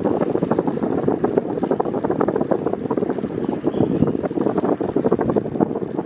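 Airflow from an Arno VB40 40 cm electric fan on its lowest speed buffeting the microphone: a steady, gusty rushing noise.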